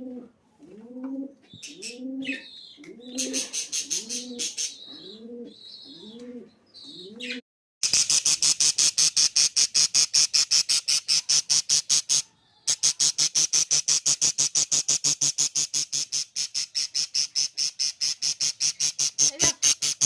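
A pigeon cooing in a repeated rising-falling call, about one a second, with high chirps over it. It then breaks off, and a loud, very even train of rapid pulses, about ten a second, follows for the rest, with one short pause.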